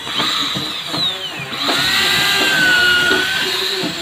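Crown electric hand drill running against the wooden hull planking. It spins up at the start, winds down with a falling whine about a second and a half in, then revs back up and runs steady.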